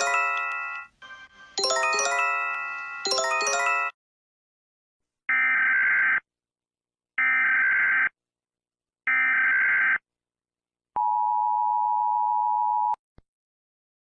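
A Japanese emergency alert chime, a bell-like phrase played twice, ends about four seconds in. Then comes the US Emergency Alert System signal: three short buzzy data bursts of the SAME header, about a second each, followed by the two-tone attention signal (853 and 960 Hz), a steady harsh tone held for about two seconds.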